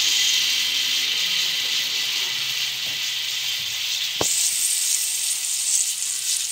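Ghee sizzling on a hot dosa tawa, a steady hiss. A single short knock comes about four seconds in, and the sizzle turns sharper after it.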